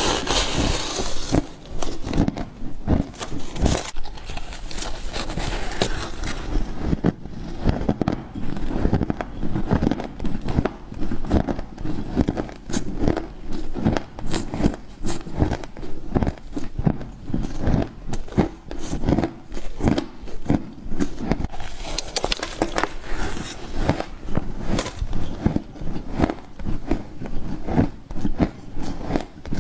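A person biting and chewing frost scraped from a freezer: dense, rapid crunching and crackling, close up.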